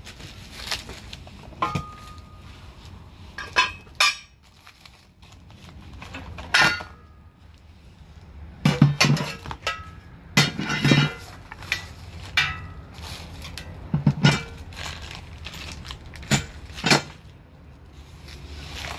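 Red steel parts of a hydraulic press clinking and knocking against each other and the frame as they are unpacked, with plastic wrapping crinkling. The knocks come irregularly, about a dozen of them, the loudest bunched around the middle.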